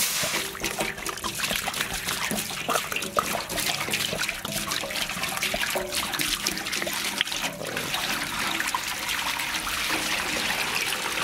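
Water poured in a steady stream into a large empty metal cooking pot, splashing and trickling against its bottom.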